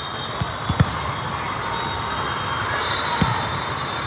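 Volleyballs being hit and thumping in a big echoing sports hall, a few sharp smacks over a steady din of crowd chatter. Faint squeaks come in near the end.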